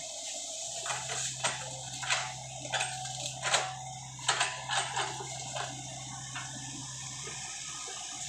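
Sany SY55C mini excavator working as it digs, its engine and hydraulics giving a steady drone that sets in about a second in and eases off near the end, with a string of sharp knocks and clanks over the first five seconds or so.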